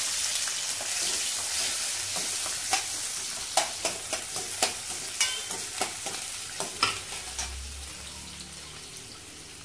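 Sliced shallots sizzling in hot sesame oil in a stainless steel kadai, stirred with a metal slotted spatula that clinks against the pan several times. The sizzle is loudest as the onions go in and slowly dies down.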